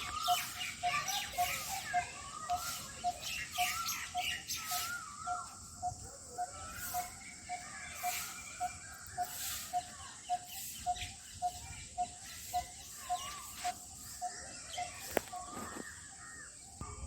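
A bird calling from a tree: a single low note repeated steadily, about two to three times a second. Other birds chirp and twitter over it, most busily in the first half.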